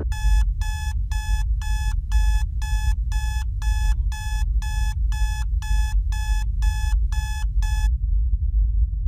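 Electronic alarm clock beeping in a fast, even pattern of about two and a half beeps a second, then stopping abruptly about eight seconds in. A steady low rumble runs underneath.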